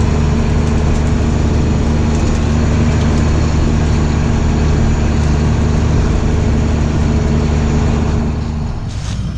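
John Deere combine running steadily while shelling corn. Near the end the drone drops in level and its low tones shift down as the machine loses drive, around the time a belt breaks.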